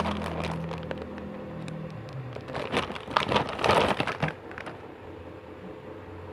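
Rustling and crackling handling noise as a squishy toy is picked up and shown, loudest about three to four seconds in.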